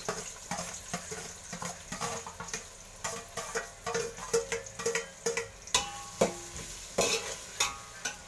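Sliced onions sizzling in hot oil in a metal pot, with a metal spatula tapping and scraping them off a steel bowl and stirring them. A few ringing metal clanks about two-thirds of the way through.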